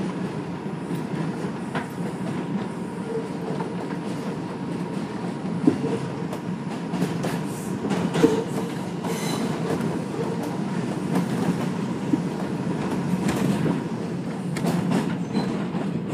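R142 subway car running at speed on elevated track, heard from inside: a steady rumble of wheels on rail with clickety-clack over joints and switches. Two sharp clanks stand out midway, a couple of seconds apart.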